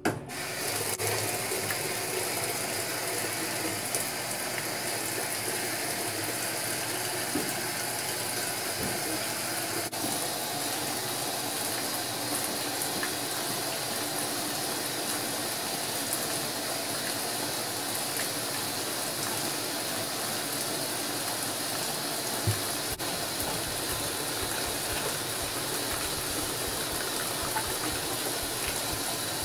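Top-loading washing machine filling with hot water: a steady rushing hiss of water pouring into the empty tub, which starts abruptly. One brief knock partway through.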